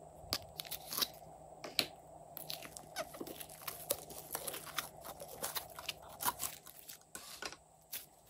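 Thin plastic slime pot being squeezed and pressed by hand as thick slime is pushed out of it, giving irregular sharp crackles and clicks with sticky popping from the slime. A few separate clicks come first, and the crackling grows dense from about two seconds in.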